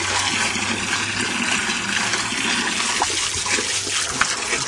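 Garden hose running water into a shallow tarp-lined pool: a steady rush of pouring, splashing water.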